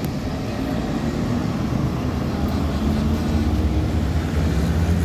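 City traffic with a steady low rumble of buses and cars moving through an intersection, while a ZiU-682G trolleybus pulls across.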